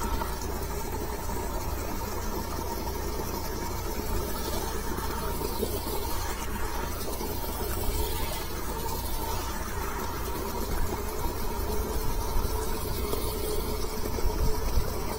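High-pressure sewer jetter's engine and pump running steadily, an even machine hum with a faint steady tone.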